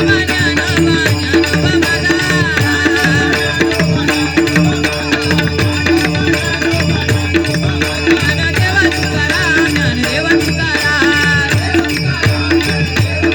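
Devotional bhajan music during the closing gajar: a steady drum rhythm with hand cymbals clashing and a wavering sung or played melody over it.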